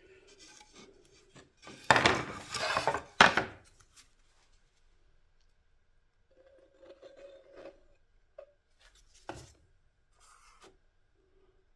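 Parts being handled and repositioned on a workbench: a loud scraping rub lasting about a second and a half, a softer rub later, and a single sharp knock near the end.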